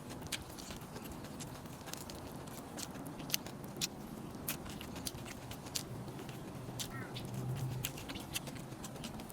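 Eating noises: scattered, irregular sharp clicks and smacks of chewing, over a low steady hum.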